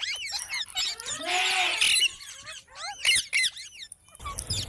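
Green parrot calling: a run of short, quickly rising and falling chirps and whistles, with a harsh squawk lasting about a second, about a second in.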